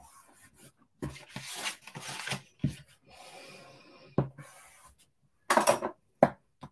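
Card stock sliding and rubbing across the paper-covered work surface as a handmade card is handled and turned, followed by a few sharp knocks and taps in the second half, the loudest about five and a half seconds in.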